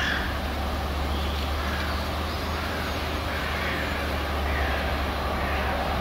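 Freight train shunting slowly through a rail yard, its diesel locomotive's engine running as a steady low drone under the rumble of the wagons.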